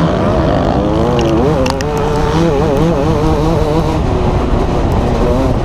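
Motocross bike engine running under throttle, its pitch rising and falling as the rider works the throttle, over heavy wind noise on a helmet-mounted camera. A few sharp ticks cut through.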